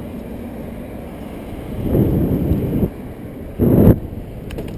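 Wind buffeting a bicycle-mounted action camera's microphone as the bike rides along a street, with passing car traffic under it. There are two louder gusts, about two seconds in and near the end.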